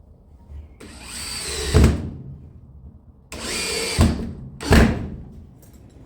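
Power drill run in three short bursts, the first two about a second long and the last briefly, each ending in a thump. This is typical of screws being driven home.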